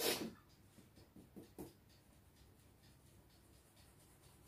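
A utensil stirring cake batter in a mixing bowl. There is a sharp scrape or knock against the bowl at the start and a few softer knocks about a second and a half in, then faint scraping.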